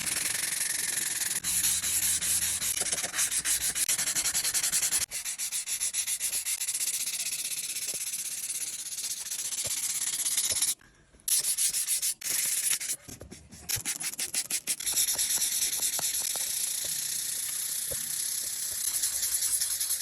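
Wet sandpaper scrubbed rapidly back and forth by hand along the steel blade of a rusty yanagiba (a single-bevel Japanese sushi knife) to take off the rust. It makes a fast, even rasping, with two short breaks a little past the middle.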